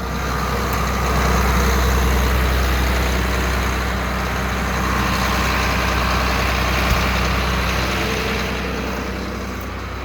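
John Deere tractor engine idling steadily with the PTO disengaged, a deep even hum under broad mechanical noise.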